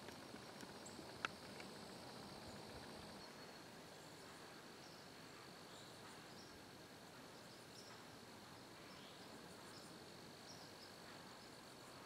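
Faint, steady high-pitched trilling of insects such as crickets, with a few small chirps over it. A single sharp click sounds about a second in.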